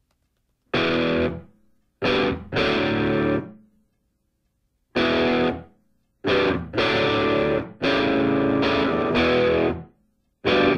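Rock music with distorted electric guitar, played in loud stop-start chord stabs that cut off abruptly into short silences.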